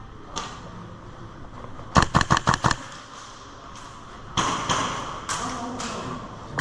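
Airsoft gun firing a quick burst of about eight shots, roughly ten a second, about two seconds in, followed by a few scattered single shots or BB hits later on.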